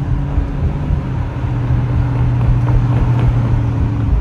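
Car engine running at a steady pitch while driving, dropping to a lower note near the end.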